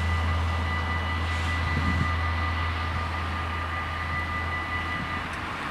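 Dutch level-crossing warning bells ringing steadily while the half-barrier arms rise, stopping about five seconds in. A low steady rumble runs under them and breaks off at about the same time.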